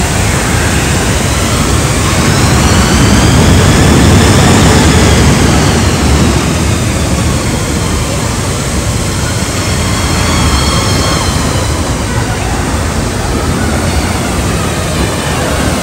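Roller coaster train rolling past on its steel track: a loud rumble with a whining wheel noise that rises and falls, loudest a few seconds in, then passing again more faintly about ten seconds in.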